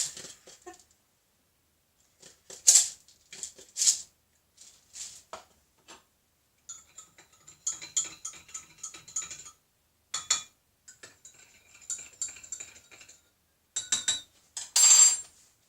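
A metal teaspoon clinking against a china coffee cup while sugar is spooned in and stirred. There are a few separate clicks at first, then a quick run of light clinks from the stirring, and a louder clatter near the end.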